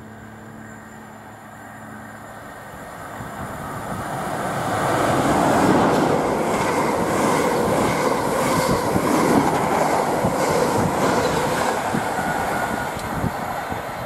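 Class 90 electric locomotive and its intercity coaches passing at speed. The sound of wheels on rail swells over the first five seconds into a loud steady rush, with a regular clickety-clack of wheels over rail joints, about two a second.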